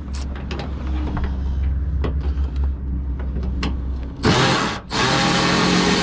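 Small clicks and knocks from handling fasteners and tools, then a cordless power tool running hard in two bursts near the end, a short break between them, as a 10 mm bolt holding the Camaro's bumper is run out.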